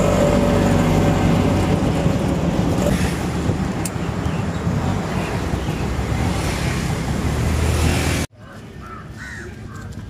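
Auto-rickshaw (tuk-tuk) ride: a steady engine drone and wind rush inside the open cab. It cuts off abruptly about eight seconds in, and quieter outdoor ambience with a few short bird calls follows.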